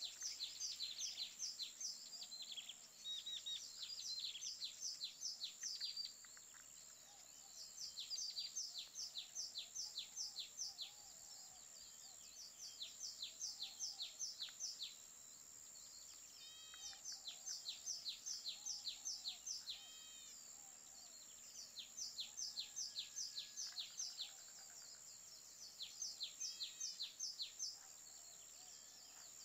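Songbird singing in repeated bouts of rapid, downward-sweeping high chirps, each bout lasting a few seconds with short pauses between. A few lower, rounder calls from another bird come in about two-thirds of the way through, and a steady high hiss runs underneath.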